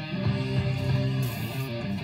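Background guitar music, a run of plucked notes over a steady low bass line.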